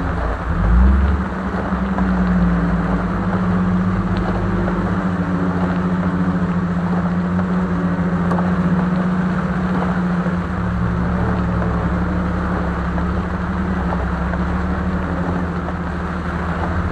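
1973 Jeep CJ-5's engine running steadily as it drives, with a heavy low thump a little under a second in.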